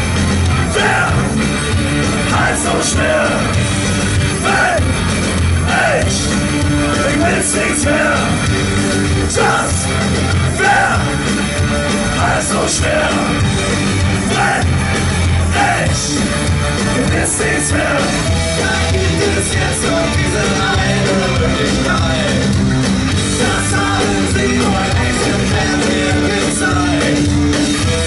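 Punk rock band playing live and loud: electric guitars, bass and drums, with a voice singing over them.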